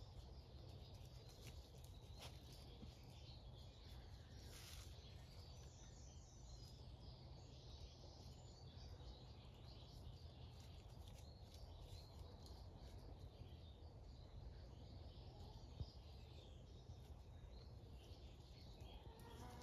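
Near-silent rural ambience: a faint steady low rumble with faint bird chirps high up a few seconds in, and a single small click late on.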